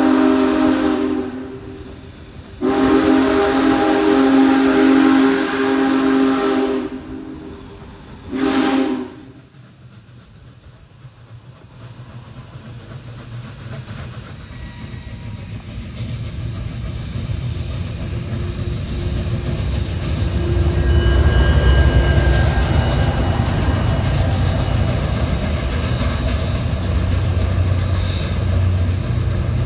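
Union Pacific Big Boy 4014's steam chime whistle sounding a chord of several notes: one blast ending about a second in, a long blast, then a short one. After that the rumble of the train passing below grows louder and stays loud.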